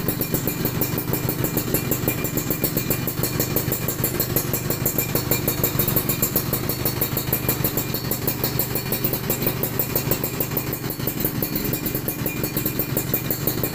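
Suzuki Tornado's two-stroke single-cylinder engine running steadily at idle through a standard-style racing exhaust, a fast even beat of exhaust pulses.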